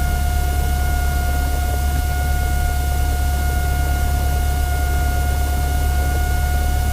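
Cessna 172 piston engine idling at about 1000 RPM during the pre-takeoff run-up, a steady low drone with a steady high-pitched whine over it.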